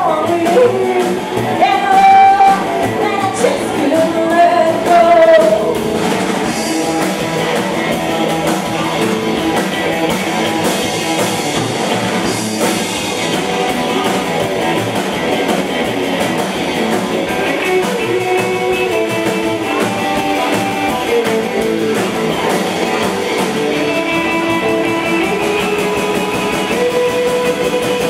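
Live rockabilly band playing: a woman singing over hollow-body electric guitar, upright bass and drums for the first few seconds, then an instrumental stretch with the band playing on without the voice.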